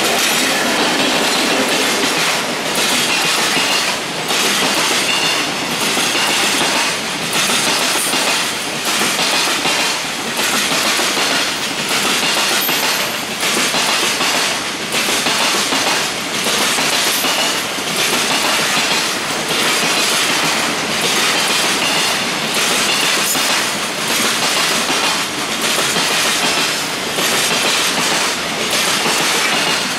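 Container freight wagons rolling past at speed, their wheels clattering over the rail joints in a steady repeating clickety-clack.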